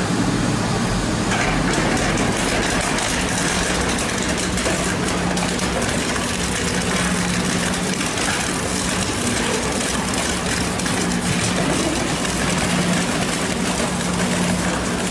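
Heavy crushing/shredding machine running: a steady low motor hum under a continuous crackle of material being broken up.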